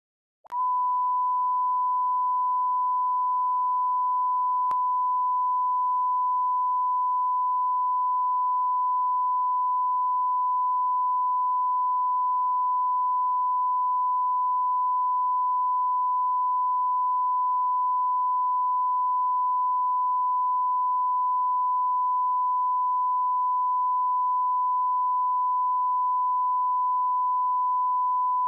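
Videotape line-up tone: a single steady, unchanging test tone of the kind recorded with colour bars for setting audio levels. It starts suddenly about half a second in, over a faint low hum.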